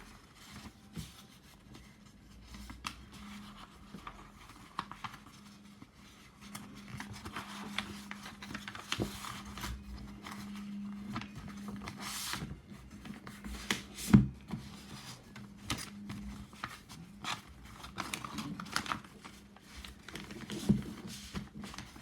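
A sheet of paper being folded and creased by hand, with intermittent rustling, crinkling and small taps, and one sharp knock past the middle.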